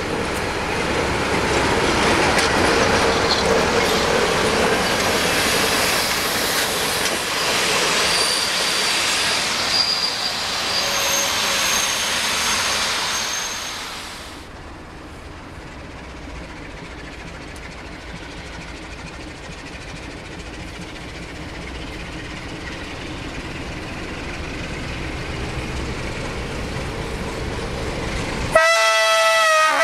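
Close-up diesel locomotive and train noise, loud and dense, which cuts off abruptly about halfway through. After it comes a quieter low rumble that slowly builds as an Electroputere LDE Class 60 diesel-electric locomotive approaches, and near the end it sounds its horn, a loud chord of several notes.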